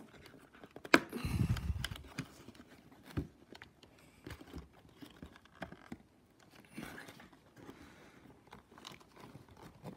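Cardboard and paper scenery pieces being handled and pressed into place: scattered rustling and small clicks, with a sharper click about a second in.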